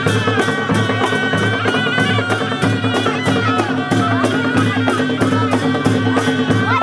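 Panche baja band music: a shehnai-like reed melody over drums and cymbals keeping a quick, steady beat.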